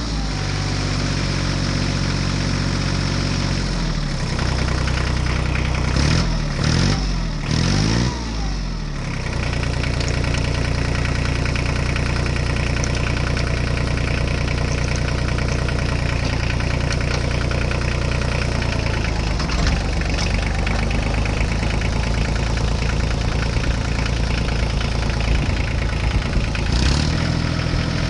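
Tractor engine running, revved up and down a few times, then settling to a steady run.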